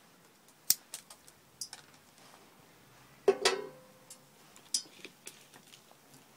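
Scattered sharp clicks and light taps of hands and a small tool working a bonsai root ball of peat and gravel, with one louder clatter about three seconds in.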